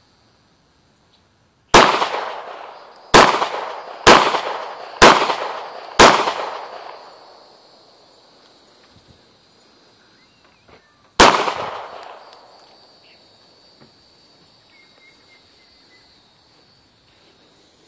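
Hi-Point 9mm pistol firing six shots: five in quick succession about a second apart, then a single shot about five seconds later, each followed by a long fading echo.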